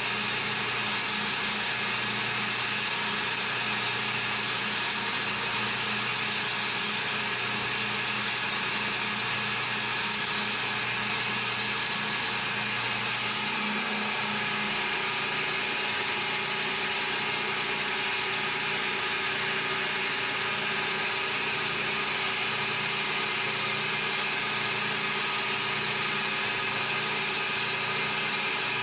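CNC milling machine running steadily: a constant hum and hiss with several steady tones, its low hum changing about halfway through.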